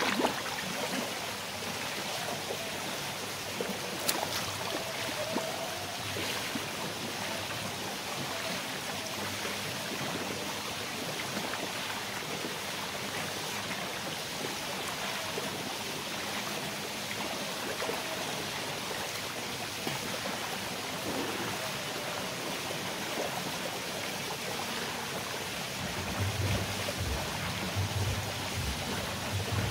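Swimming-pool water splashing and trickling steadily, with some low rumbling near the end.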